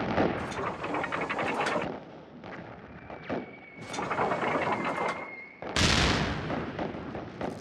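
Battle sound effects: stretches of rapid gunfire crackle, a thin steady high tone from about three seconds in, then a heavy explosion near six seconds that dies away slowly.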